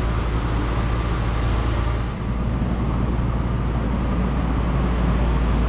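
An engine running steadily: a low, even rumble with a hiss above it.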